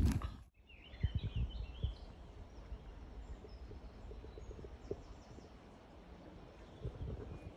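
Footsteps on dry ground that cut off suddenly about half a second in. Then quiet outdoor ambience: a small bird gives a quick run of chirps about a second in, with fainter high calls later, over a low rumble and a few soft knocks.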